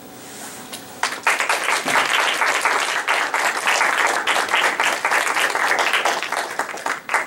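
An audience applauding: many hands clapping together, starting suddenly about a second in and stopping abruptly near the end.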